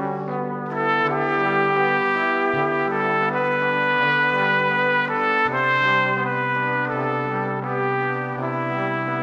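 Music on brass instruments, trumpets and trombones holding long, sustained chords that change about every two to three seconds.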